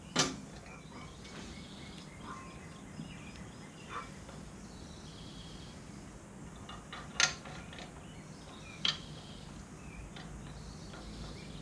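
A few scattered sharp metal clinks and taps as a steel pin and washer shims are worked into a backhoe quick-connect coupler, the loudest three near the start, about two-thirds of the way in, and shortly after. Birds chirp faintly in the background.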